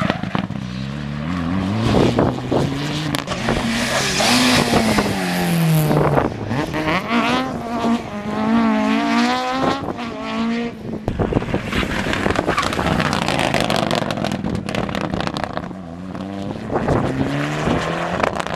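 Rally car engines revving hard as the cars pass one after another, the pitch climbing and dropping again and again through gear changes.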